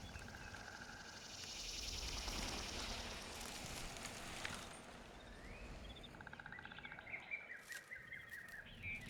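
Outdoor nature ambience: a steady hiss, then birds chirping and trilling in the second half.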